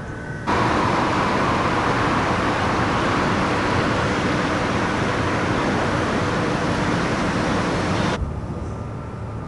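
Steady, loud rushing noise on the open deck of a ferry, with a faint steady hum running through it. It starts abruptly about half a second in and stops abruptly about a second before the end.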